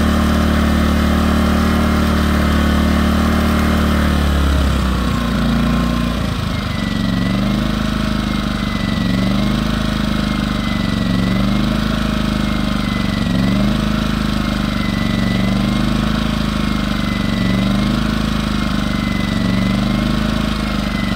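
Firman W01785 inverter generator's engine running. About four seconds in its note shifts, and from then on it rises and falls in pitch about every two seconds, a slow regular surge.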